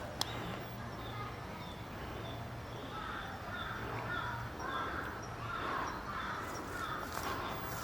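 Wild birds calling outdoors: a faint, evenly spaced series of high chirps throughout, joined about three seconds in by a run of short, repeated harsher calls.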